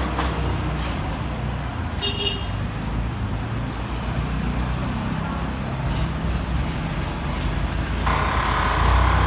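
An engine running with a steady low rumble. A short high tone sounds about two seconds in, and a higher whirring noise joins near the end.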